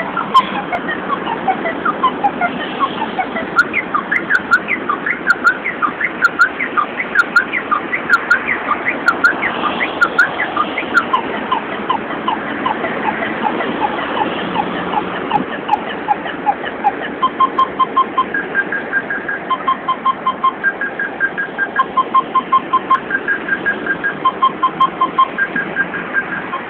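Car alarm siren playing its beatbox-style sequence of electronic tones in a steady rhythm. For most of the first half it makes rapid falling chirps; from about two-thirds in it switches to repeated short groups of quick beeps on two or three pitches.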